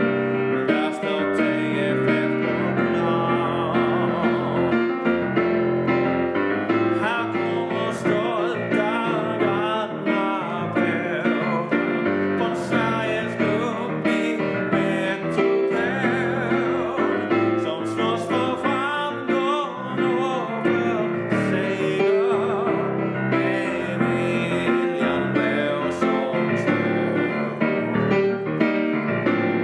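A man singing a Swedish hymn solo, accompanied by piano.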